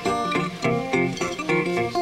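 Acoustic guitar played live: quick plucked notes over a low, moving bass line, an instrumental passage with no singing.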